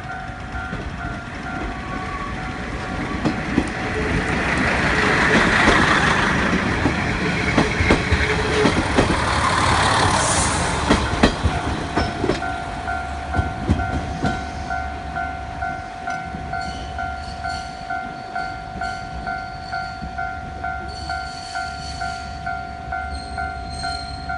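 Japanese level-crossing warning bell ringing with an evenly repeating two-tone clang, about one and a half strokes a second, as a JR Kyushu train passes. The train's rumble swells over the first half with a run of sharp wheel clicks over rail joints, then dies away about twelve seconds in, leaving the bell ringing on.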